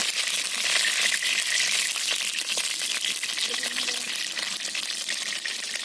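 Steady hiss with fine crackling from a wood fire and the pan heating over it, as the oil for frying comes up to temperature.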